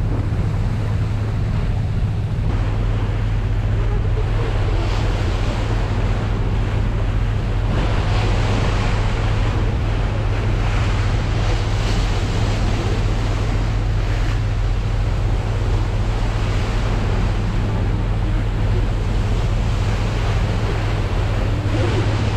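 Drift-ice sightseeing ship Garinko-go II under way: a steady low engine hum under the rush of water along the hull, with wind on the microphone.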